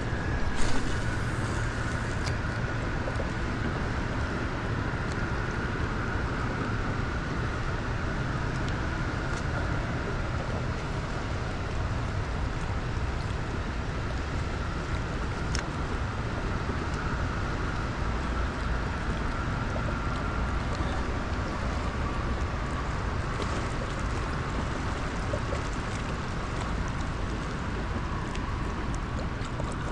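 Steady rushing of fast, turbulent river water below a dam. A faint steady whine sits under it, and there is a brief bump about a second in.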